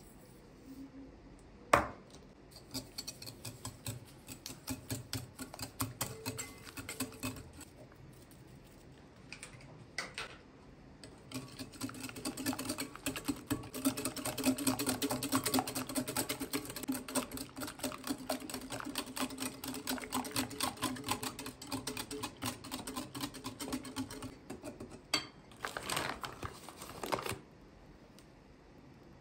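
Wire whisk beating eggs and sugar in a glass bowl: rapid clicking and scraping of the wires against the glass, densest through the middle stretch. A single sharp knock about two seconds in.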